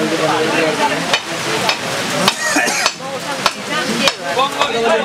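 Steady rain hissing down, with scattered sharp taps of drops on the plastic tarpaulin overhead. Voices talk faintly underneath.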